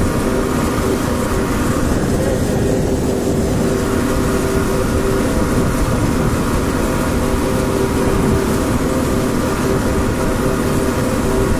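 HMT 5911 tractor's diesel engine running steadily while driving on the road, heard from the driver's seat beside the upright exhaust stack.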